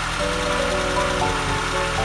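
Background music, a melody of held notes, playing over a Nissan Skyline DR30's engine idling with a steady low pulse.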